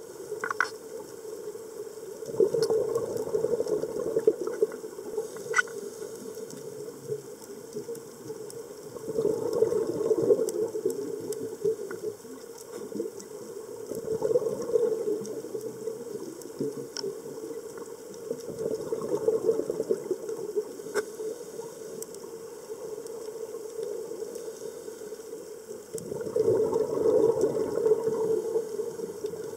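Scuba diver's regulator breathing heard underwater: five bubbling rushes of exhaled air a second or two long, spaced about five to seven seconds apart, with a quieter hiss between them and scattered sharp clicks.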